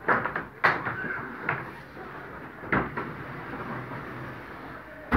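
Frameless glass curtain panels sliding along their aluminium track, with a series of sharp knocks and clunks as the panels are pushed on and bump together, five in all, the loudest at the end.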